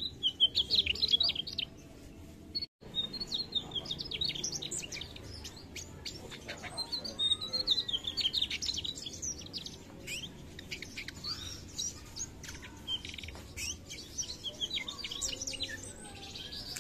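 A mugimaki flycatcher singing: fast, high twittering phrases repeated one after another. The audio drops out for an instant about three seconds in.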